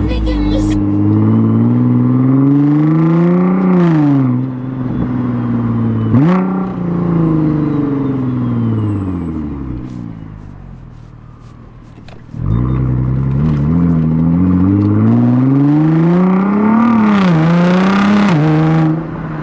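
Nissan GT-R R35's twin-turbo VR38 V6, with intakes and a catless midpipe, pulling hard through quick dual-clutch upshifts: the engine note climbs, then drops sharply at each shift. In the middle the revs fall away and it quietens, then it comes back in suddenly and climbs through more upshifts.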